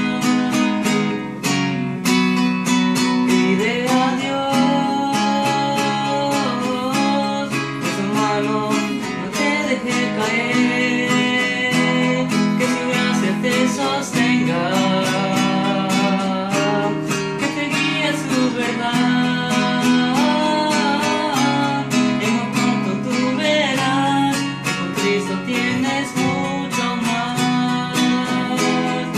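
Nylon-string classical guitar strummed in a steady rhythm, with a man singing a melody over it.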